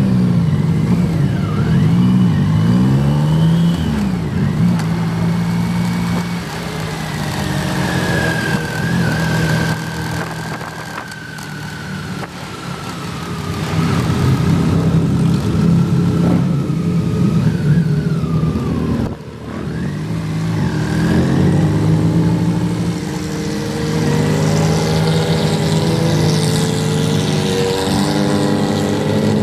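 1988 BMW K75 motorcycle's three-cylinder engine pulling away and riding at moderate speed, its revs rising and falling through several gear changes. There is a short drop in level about two-thirds of the way through.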